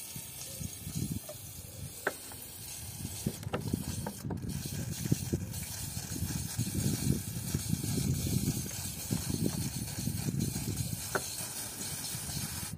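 Aerosol cleaner spray hissing as it is sprayed through a straw onto a diesel tandem pump to clean it. Uneven low rustling of hands handling the pump and can runs alongside, with a few light clicks.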